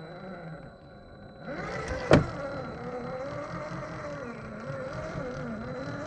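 Electric motor and gear drivetrain of a 1/10-scale RGT Rescuer RC rock crawler whining as it crawls over the trail, louder from about a second and a half in, its pitch wavering up and down with the throttle. A single sharp knock about two seconds in is the loudest sound.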